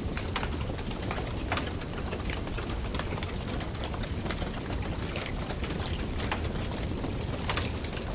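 Wood campfire burning, crackling and popping irregularly over the steady low rush of the flames.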